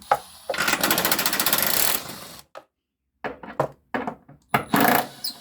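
A fast run of rapid mechanical clicks for about two seconds, then several separate knocks and clatters of metal tools and parts being handled in a car's engine bay.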